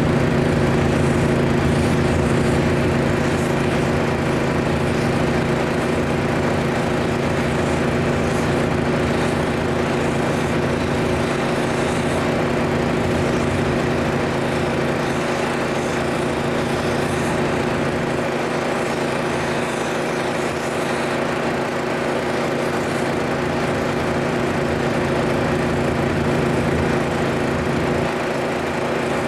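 Small combustion engine running steadily at a constant speed, an even drone with no change in pitch.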